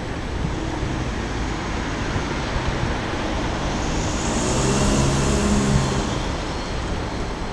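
Road traffic rumbling, with a motor vehicle passing close: its engine and tyre noise swell to a peak about four to six seconds in, then fade away.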